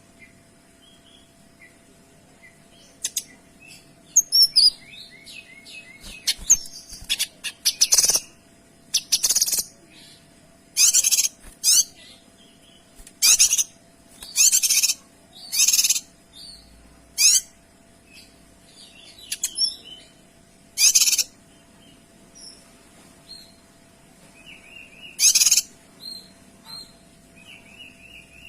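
Kinoy songbird singing in loud, harsh, rapid-fire bursts of call, about one every second or two, with softer chirping notes between them.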